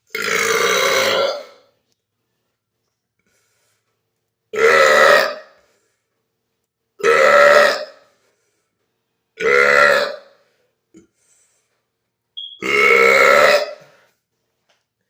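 A man belching loudly five times, each burp about a second long and the first the longest, a few seconds apart. It is the release of carbonation gas built up from drinking a bottle of Sprite and holding the burps in.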